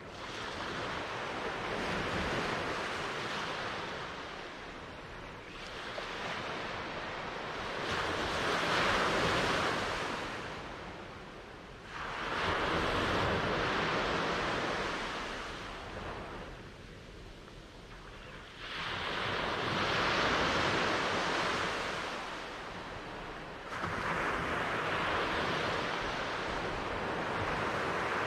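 Pacific ocean waves breaking and washing up the shore in repeated surges every few seconds, several arriving with a sudden crash.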